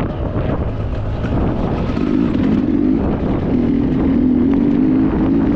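Sherco dirt bike engine running as the bike is ridden along the trail, its pitch dipping briefly near the start and then holding, wavering a little, with scattered knocks and clatter from the bike over the ground.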